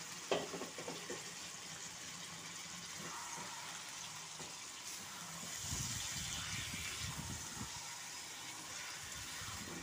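Marinated chicken sizzling in hot oil in a metal kadai, a steady hiss, while a spatula stirs the pieces. A sharp knock comes about a third of a second in, and rougher stirring noises from about five and a half to seven and a half seconds in.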